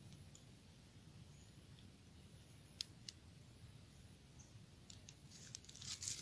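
Near silence: a faint low background hum with two soft clicks a little under three seconds in and a short patch of light crackling near the end.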